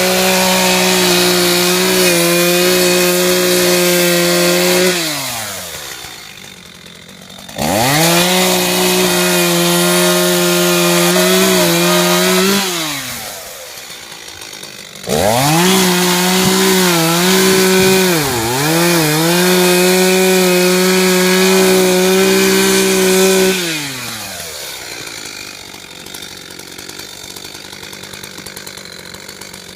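Two-stroke chainsaw held at full throttle in three long runs, each falling back to a low idle before it is opened up sharply again. In the third run the pitch dips briefly a few times, as when the chain bogs under load in wood; near the end it settles to idle.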